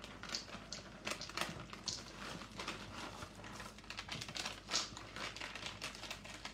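Chocolate chips pouring from a crinkling bag into a stainless steel mixing bowl, with an irregular pattering and clicking of chips landing.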